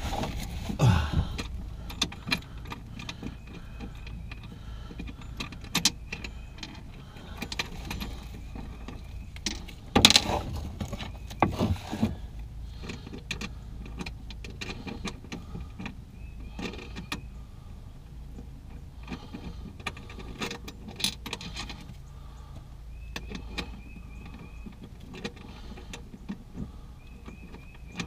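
Small metallic clicks, taps and knocks of hardware being worked by hand while an onboard battery charger is fastened under a boat console, with louder knocks about a second in and around ten and twelve seconds in.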